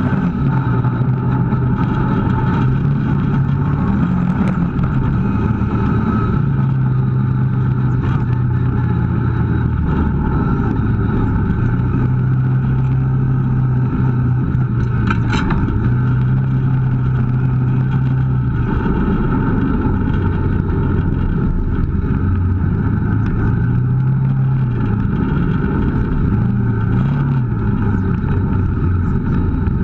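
Kawasaki KVF 650 ATV's V-twin engine running as it rides along a trail, its pitch rising and falling with the throttle. A single sharp click or knock about halfway through.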